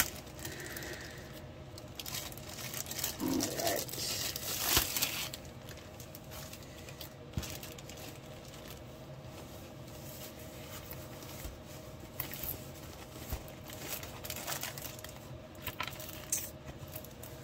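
A torn clear plastic bag crinkling and rustling as it is pulled off a rolled diamond-painting canvas. The canvas is then handled and unrolled. The rustling comes in irregular flurries with pauses between them.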